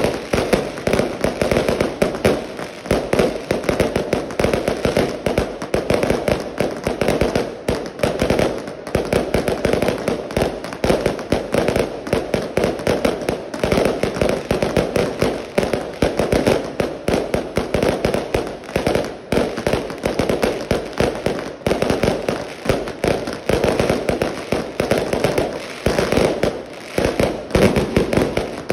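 Fireworks barrage: shells launched from street level, with bangs coming in quick, unbroken succession and bursting overhead. The bangs are loud and crackle throughout.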